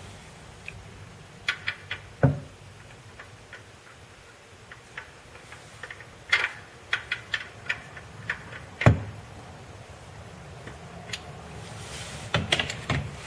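Hand tools and metal parts clicking and knocking under a car: scattered sharp clicks, a quick run of them in the middle and another near the end, and two heavier knocks, one about two seconds in and one past the middle.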